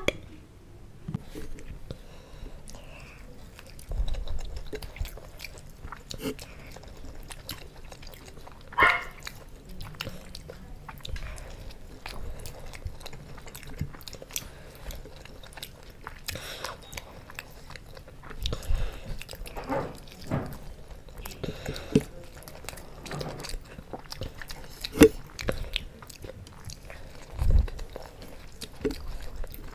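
Two people biting into and chewing momos close to a microphone: soft wet chewing and small mouth clicks throughout, with a few brief louder sounds now and then.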